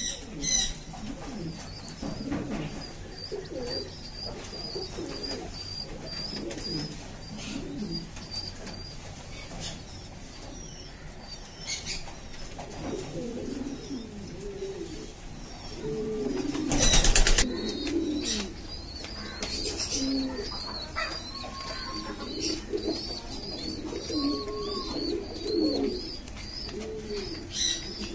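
Pigeons cooing in low, rolling coos over a run of rapid, high peeps from squabs begging while being fed. A short, loud flutter of wings comes a little past halfway.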